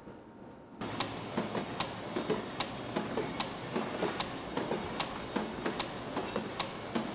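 Spring-making machines running on a factory floor: a steady mechanical rattle with sharp clacks two or three times a second, unevenly spaced. It starts abruptly about a second in.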